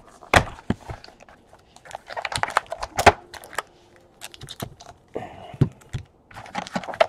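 Hands opening a cardboard trading-card box: the lid is lifted off and the wrapped pack inside is pulled out. The handling makes a run of sharp taps, scrapes and crinkles, busiest a couple of seconds in and near the end.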